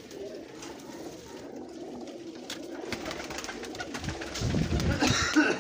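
Flock of Kasuri pigeons cooing in a small loft, a low wavering coo throughout. About four seconds in, a louder muffled noise lasts for a second or so.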